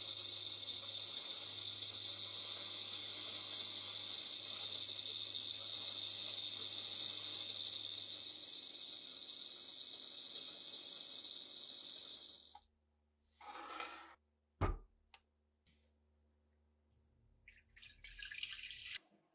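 Steady hiss of water running from a tap that cuts off abruptly about twelve seconds in. After it come a sharp click, a few light ticks and a short rustle of handling near the end.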